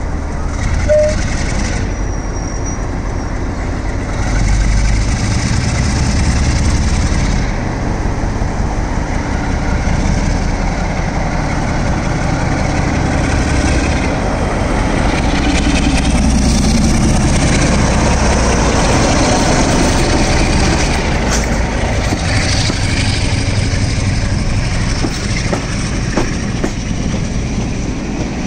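Class 47 diesel locomotive with a Sulzer twelve-cylinder engine pulling away under power and passing close by, the engine getting louder about four seconds in. Then passenger coaches roll past with wheels clattering over the rail joints.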